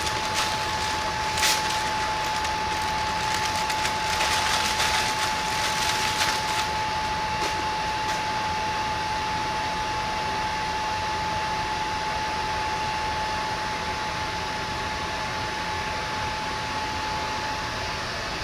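Steady whir of a fan or blower with a constant high tone over it, and light crackling through the first several seconds.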